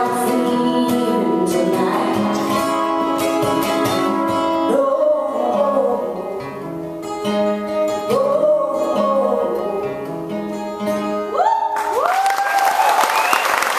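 A woman singing live over a strummed acoustic guitar, the strumming thinning out a few seconds in as she holds the last sung lines. About twelve seconds in the song ends and the audience breaks into applause and cheering.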